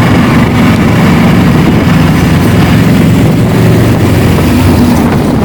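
Yamaha R15 motorcycle's single-cylinder engine running steadily as the bike is ridden, with a steady rushing noise over it.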